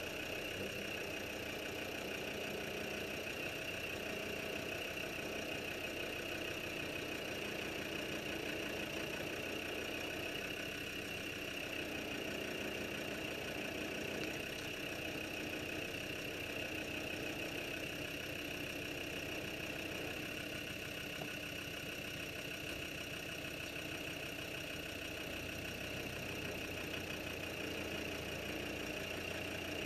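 Land Rover engine ticking over at a steady idle while the vehicle crawls slowly, with a constant high-pitched whine alongside.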